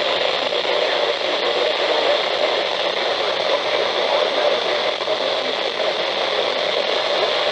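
Steady hiss of radio static from a NOAA Weather Radio receiver.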